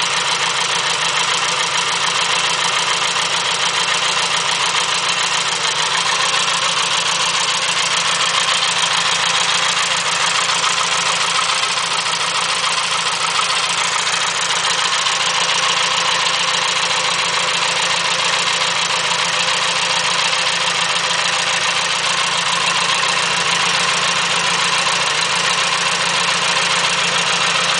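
1936 Indian Four's air-cooled inline four-cylinder engine idling steadily, at an even pace and level throughout.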